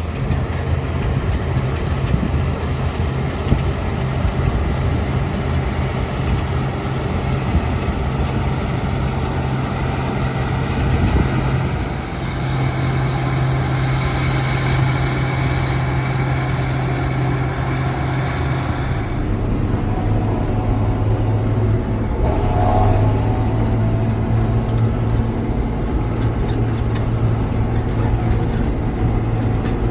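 Farm machinery engine running steadily with a low, even hum. The tone changes abruptly twice, about twelve and nineteen seconds in.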